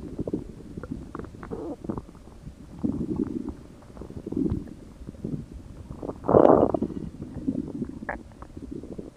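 Human stomach growling: irregular low gurgles and rumbles with small squeaky pops, and one louder, longer gurgle about six seconds in.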